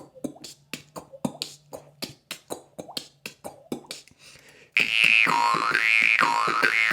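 Morchang (jaw harp) played percussively: a quick run of sharp K-sound clicks made with the mouth through the harp, about three or four a second. About two-thirds through, the harp rings out loud, its overtones sweeping up and down in a wah-like pattern.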